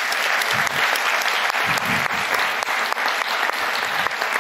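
A large audience applauding, many hands clapping steadily and evenly.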